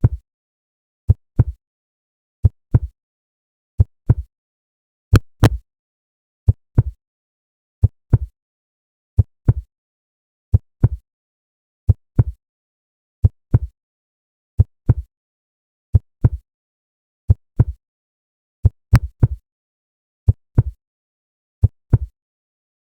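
Human heartbeat sound effect: a slow, even rhythm of lub-dub double thumps, one pair about every second and a third.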